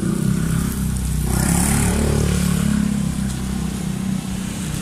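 A motor vehicle's engine running close by, steady and low throughout, with a louder rush about a second and a half in.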